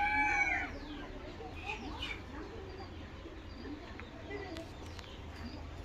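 Serama bantam chickens: the end of a rooster's crow about half a second in, then soft scattered clucks and short calls.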